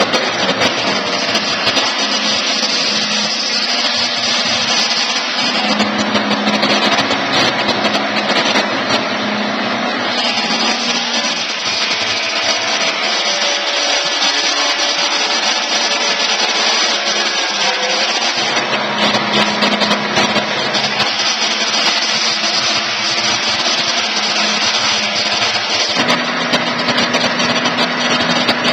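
Portable electric sawmill running and milling: a steady mechanical drone with a hum whose pitch shifts a few times, around 6, 18 and 26 seconds in.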